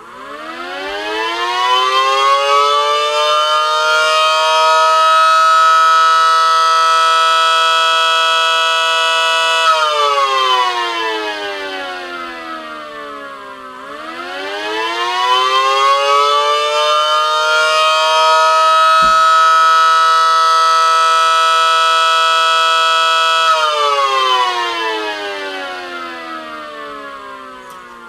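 3D-printed miniature Federal Signal SD10 tornado siren, its small electric motor spinning the chopper, winding up twice. Each time a chord of tones rises to a steady wail, holds for several seconds and winds down with falling pitch. It runs a little short of full speed, which the builder thinks may be down to the old motor driving it.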